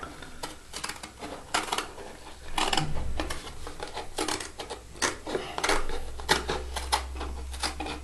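Small scissors snipping through a Tetra Brik milk carton, a series of short, irregular cuts through the stiff carton.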